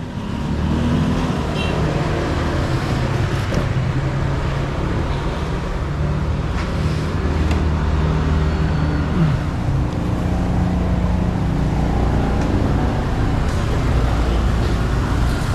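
Road traffic: motor vehicle engines running steadily, with a low rumble that carries on throughout.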